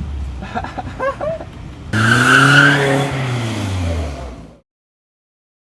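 A car engine revving up and easing off, loud for about two and a half seconds starting about two seconds in, over lower vehicle noise. The sound then cuts off abruptly.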